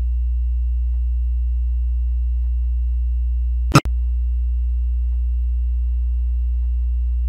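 Steady 60 Hz sine test tone, played first through the left speaker and then through the right. A sharp click and a brief break near the middle mark the switch between channels.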